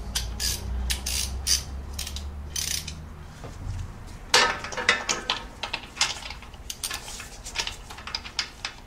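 Hand socket ratchet clicking in short irregular runs of quick clicks, with clinks of metal tools, as a spark plug is tightened down.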